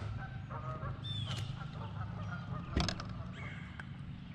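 Birds honking several times, with a single sharp knock about three seconds in.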